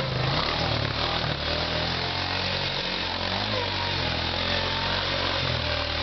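Quad ATV engine running under throttle as the four-wheeler drives up a dirt trail, its note rising and falling.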